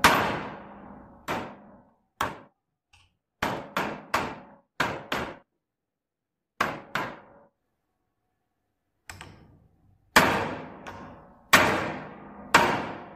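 Hammer blows on a hollow punch, cutting rings out of leather for a stacked leather handle: about a dozen sharp metallic strikes, each with a short ring, some in quick pairs, with a pause in the middle and heavier blows near the end.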